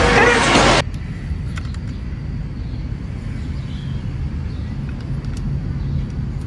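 Loud film-soundtrack race audio (music and racing cars) cuts off suddenly less than a second in, giving way to a steady low outdoor rumble with a few faint clicks.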